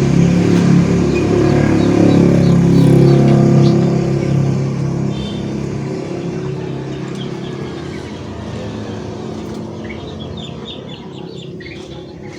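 A motor vehicle engine running steadily, loud at first and fading away over the last two-thirds, with small birds chirping faintly.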